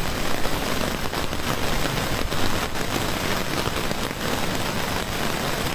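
Heavy tropical-storm rain falling, mixed with fast-running floodwater from an overflowing stream, a steady even hiss.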